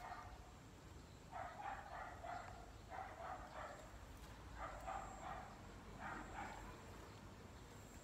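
A dog barking in four short bursts of quick barks, about a second and a half apart, over low rumbling handling noise.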